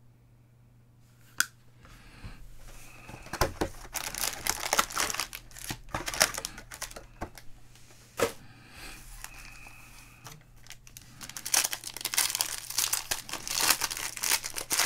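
Foil wrappers of Panini Chronicles baseball card packs crinkling in the hands and being torn open, in bursts that grow denser and loudest near the end. A single sharp click comes about a second and a half in.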